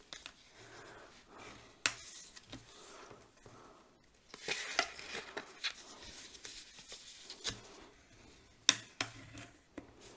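Cardstock being folded and creased by hand with a bone folder: paper rustling and the folder rubbing along the fold, with a sharp tap about two seconds in and another near the end.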